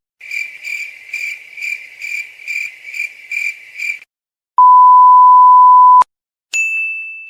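Cricket chirping sound effect, about nine even high chirps at roughly two a second, the meme cue for awkward silence. It is followed by a loud steady censor bleep lasting about a second and a half, then a higher tone that starts with a click and fades out.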